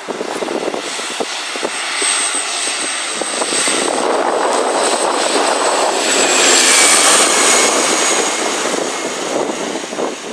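Aircraft engines running, the roar swelling to a peak about two-thirds of the way through and then easing off, with a thin high whine that falls slightly in pitch.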